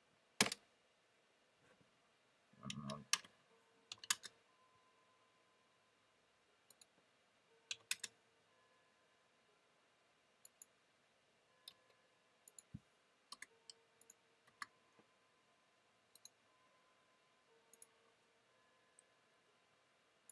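Scattered sharp computer mouse clicks, single and in quick pairs, placing line endpoints while sketching in CAD software. There is a low muffled bump about three seconds in.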